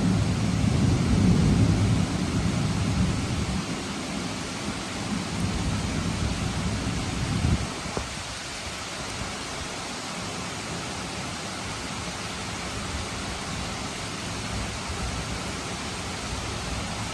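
Steady rain falling, with a low rumble of thunder that is loudest in the first couple of seconds and dies away about seven seconds in, leaving only the even hiss of the rain.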